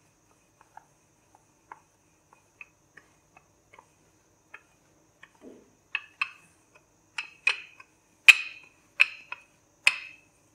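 Wooden rolling pin clicking and knocking as it rolls dough out on a counter. The clicks are faint and scattered at first, then louder and more regular from about six seconds in, roughly two a second.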